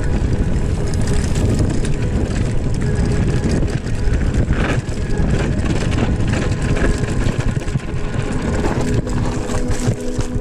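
Heavy wind buffeting and rumble on the microphone of a camera riding along on a moving mountain bike over a dirt trail.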